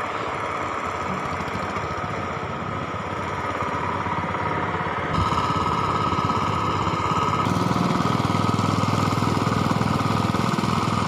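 Engine of a power tiller (two-wheel tractor) running steadily with a rapid pulsing beat. It steps up louder about five seconds in and grows fuller again a couple of seconds later.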